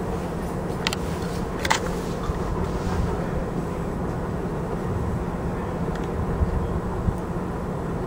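Distant NJ Transit commuter train approaching: a steady low hum and rumble. Two sharp clicks come about one and two seconds in.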